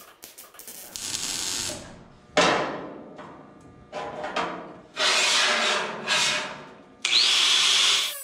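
Angle grinder cutting a steel roof bow in several loud bursts, each starting sharply and dying away, the last with a rising whine as the wheel spins up about seven seconds in. A short stretch of welder crackle comes at the start.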